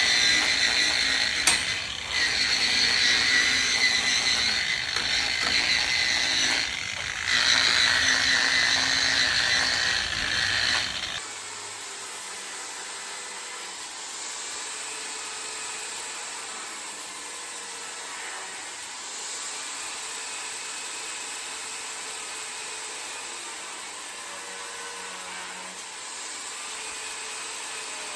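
Large angle grinder with a cut-off disc cutting pieces from metal flat bar: a loud, steady, high-pitched grind that drops off briefly twice. About eleven seconds in it breaks off abruptly to a much quieter steady hiss.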